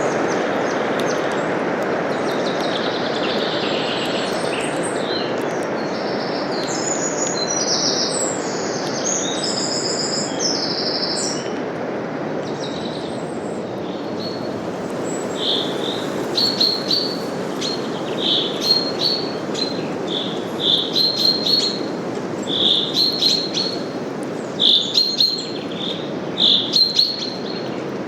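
Steady wind rustling through forest leaves, with songbirds singing over it. A varied high warbling song comes in the first part, then from about halfway a bird repeats short high chirps in quick bursts.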